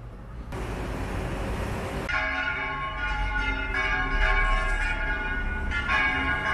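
Church bells ringing, several bells struck again and again with long ringing tones, coming in about two seconds in over a steady hiss of street noise.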